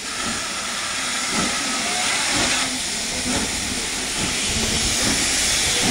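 Southern Railway N15 'King Arthur' class 4-6-0 steam locomotive 30777 hissing steadily with escaping steam, with a few irregular low thumps, growing louder as it moves slowly closer.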